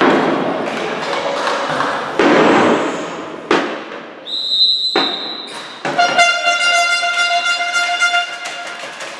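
Hall noise from the spectators to start, then a referee's whistle blows one short blast signalling a penalty throw, followed by sharp thuds of the ball. About six seconds in, a horn sounds one steady blast lasting about two seconds.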